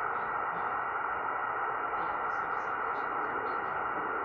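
Shortwave receiver audio tuned to 11.389 MHz, carrying an unidentified noise-like signal likened to snoring: a steady hiss filling the receiver's audio band, cut off above it.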